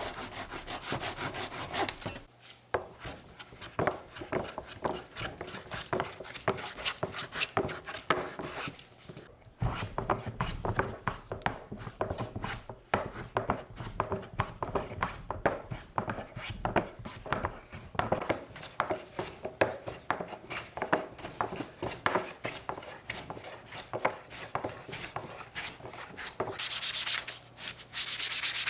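Hand tool worked against a cypress board, wood rubbing on wood or abrasive. It goes in quick, even strokes for the first two seconds and again near the end. In between come slower, irregular scrapes and knocks.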